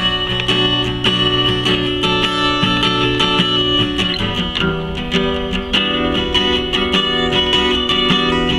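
Acoustic guitar playing an instrumental passage of a song, strummed and picked, with chords ringing between the strokes.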